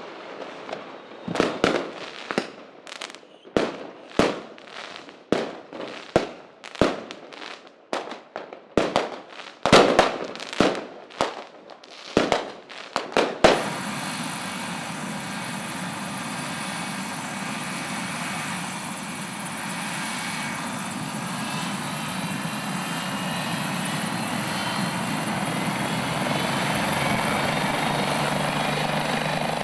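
A run of sharp, irregular cracks, about one or two a second, for the first half; then, from about halfway, a helicopter's engine and rotor running steadily with a whine, slowly getting louder as it prepares to take off.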